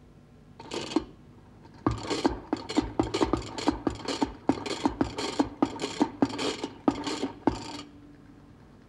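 Plunger of a tin humming top pumped by hand: one short rasp, then a quick run of rasping strokes about three a second, each ending in a click, as the spiral drive spins the top up. The pumping stops near the end, leaving a faint steady hum from the spinning top.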